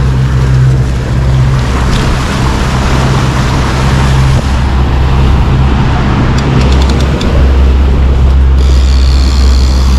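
Boat engine running steadily under way, a low drone with the rush of water and wind over it. A quick run of light clicks comes about six and a half seconds in, and a thin high tone sets in near the end.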